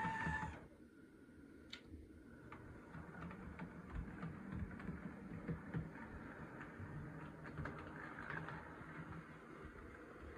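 HO-scale EMD GP30 model diesel locomotive running on layout track: the faint hum of its small electric motor and gears, with irregular light clicks as the wheels pass rail joints and turnouts. A steady high tone cuts off about half a second in.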